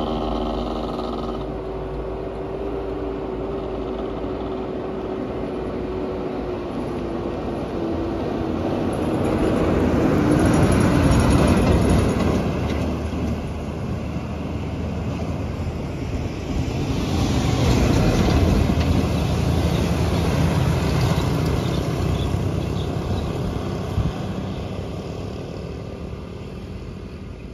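Rear-loading garbage compactor truck driving past at close range: a steady engine note that drops in pitch as it goes by, with engine and tyre noise swelling to a peak and fading away. A second vehicle passes several seconds later with another swell of road noise.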